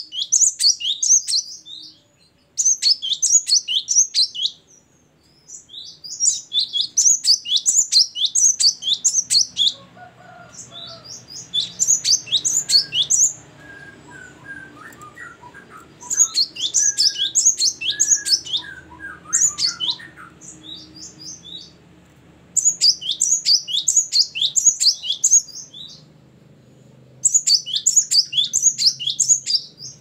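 Caged cinereous tit (gelatik batu) singing: phrases of rapid, high, downward-sweeping chirps, each a few seconds long, repeated about seven times with short pauses between.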